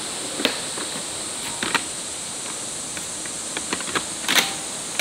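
Steady high-pitched drone of cicadas in summer woodland, with scattered clacks and knocks of camp gear being handled, the loudest a little after four seconds in.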